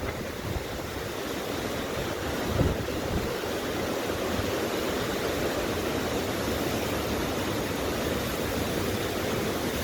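Strong storm wind blowing hard and buffeting the microphone in a steady rush of noise, with one harder gust about two and a half seconds in.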